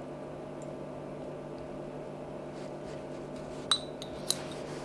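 Steady low background hum, with two light clinks of kitchen crockery, about half a second apart, near the end.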